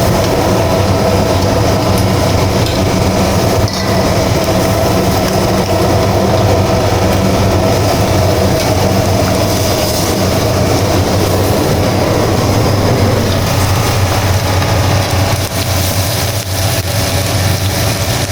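A steady, loud mechanical roar with a low hum running through it, thinning a little in the last few seconds.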